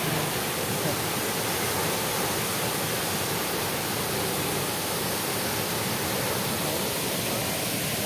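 Arvalem waterfall in full flow, crashing into the pool at its foot: a steady, even rush of falling water.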